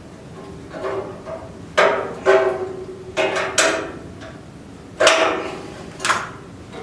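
Sheet metal knocking and clanking about seven times, each knock ringing briefly, as the squirrel-cage blower is handled and fitted against the steel back of the wood stove.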